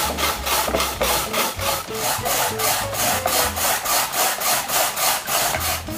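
Hand-cranked rotary drum grater shredding radish into thin strips: a steady rhythmic rasp of the blade drum cutting the radish, about five strokes a second.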